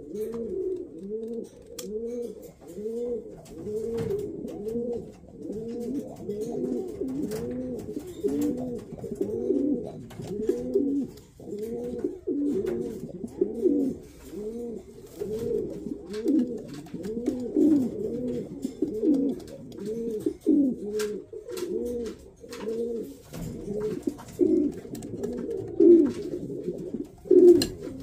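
Racing pigeon cooing: a steady run of rolling coos, about one and a half a second, somewhat louder near the end.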